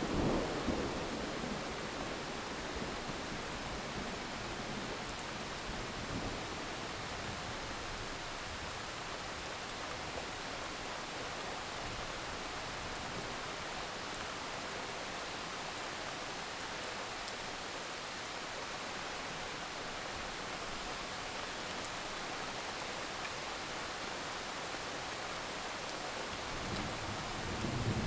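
Steady rain falling, an even hiss, with low thunder rumbling briefly at the start and building again near the end.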